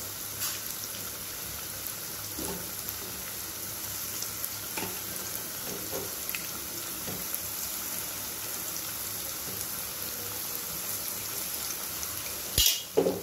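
Marinated chicken 65 pieces deep-frying in hot oil: a steady sizzle with scattered small pops and crackles. A brief loud knock comes near the end.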